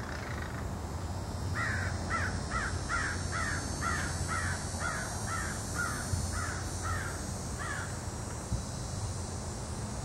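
Crow cawing: a fast run of about a dozen harsh caws, roughly two a second, starting about a second and a half in and stopping a couple of seconds before the end.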